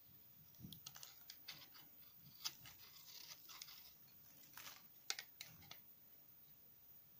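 Small knife shaving thin slices off a bar of crumbly soap, giving an irregular run of soft scrapes and crisp crunches, the loudest about five seconds in.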